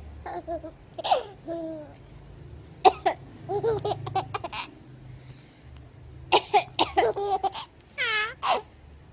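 A woman giving several sharp mock coughs, and a baby laughing and babbling between them in short bursts, with a high squealing giggle near the end.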